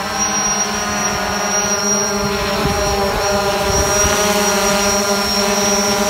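White DJI Phantom-style quadcopter drone hovering close by, its rotors giving a steady, many-toned buzzing whine.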